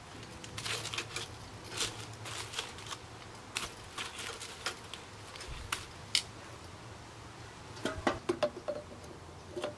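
Metal grill tongs clicking and scraping against the grate of a Weber Go Anywhere charcoal grill as food is turned, in scattered short clicks, with a quick run of metal clatter about eight seconds in.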